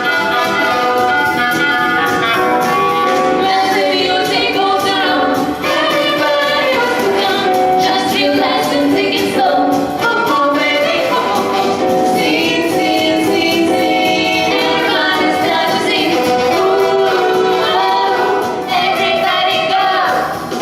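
Pop-jazz vocal ensemble singing a song with several voices at once, female voices most prominent, with musical accompaniment.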